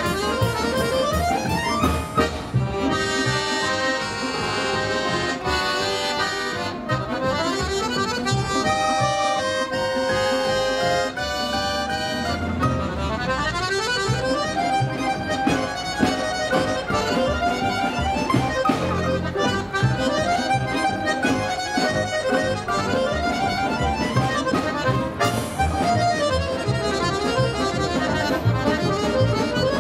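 A folk-instrument ensemble of a button accordion, plucked domra-type instruments and a violin playing a fast tune, with the accordion prominent.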